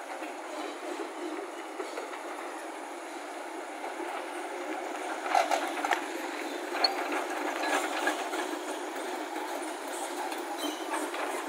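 Heavy diesel machinery running steadily, the loaded lorry and a JCB tracked excavator at work, with a burst of metallic clanks and clatter about halfway through.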